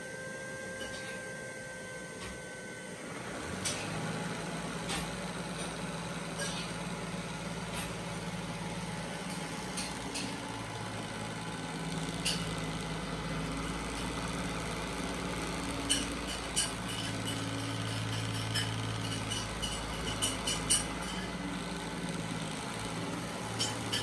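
Neato Botvac robot vacuum running on a sofa cushion. A high whine fades out about three seconds in, then a steady low motor hum from the suction fan and brush, with scattered sharp clicks and ticks as it works across the seat.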